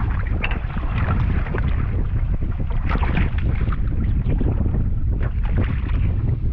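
Wind buffeting the microphone in a steady low rumble, with irregular water splashing at the side of the boat.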